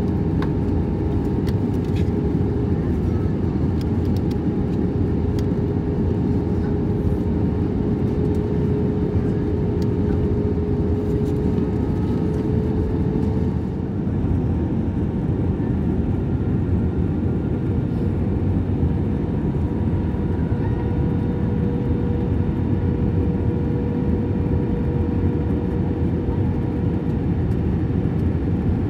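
Steady cabin roar of an Airbus A320-232 in flight, heard from a window seat over the wing: airflow and its IAE V2500 engines, with a steady hum that steps slightly higher in pitch about halfway through.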